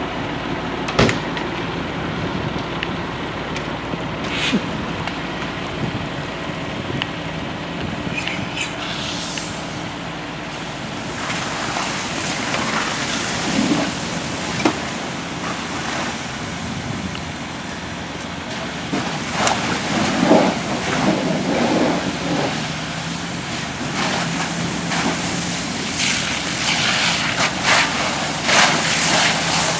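Burning car being hit with a fire hose: a steady engine running under a rushing hiss of water and flames, with a few sharp pops. The rushing grows rougher and more uneven about halfway through.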